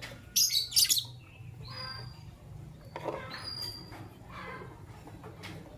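Fischer's lovebirds calling: two loud, harsh shrieks in the first second, then softer chirps and chatter with short thin high notes.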